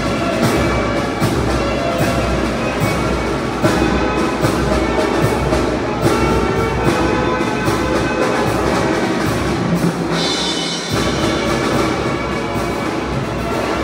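Tamborazo band music: brass instruments over drums beating a steady rhythm. About ten seconds in, the low end drops out for roughly a second, then the full band comes back.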